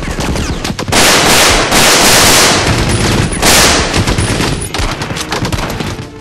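Rapid automatic gunfire. It starts as a quick run of separate shots, merges into dense continuous fire about a second in, thins back to separate rapid shots after about four and a half seconds, and stops just before the end.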